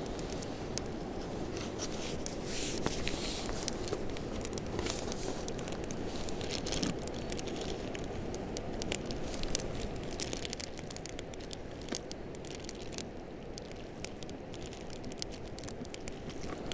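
Paper towel and plastic crinkling and rustling as hands knead raw fish mince, with many small scattered crackles over a steady low background hiss.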